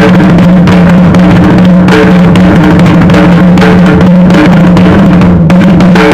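Loud Punjabi folk music led by a dhol drum beating a continuous rhythm, over a held low note, with short higher melodic notes coming and going.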